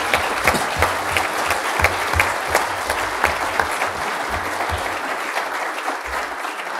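Audience applauding steadily after a talk ends.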